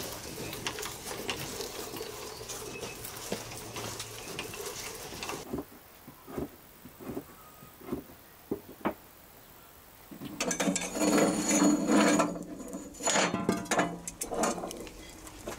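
Hand-cranked meat grinder working through walnut kernels, a steady crackle of fast clicks for about five seconds. After a quieter stretch with a few separate clicks, water runs into an aluminium pot, the loudest sound, in two spells from about ten seconds in.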